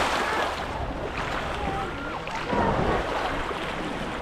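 Small sea waves washing onto a sandy-pebbled shore, with a wash swelling about two and a half seconds in, and faint distant voices behind them.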